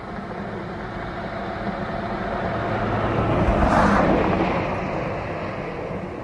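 A vehicle passing by: a broad rushing noise that swells to its loudest a little before four seconds in and then fades, over a low steady hum.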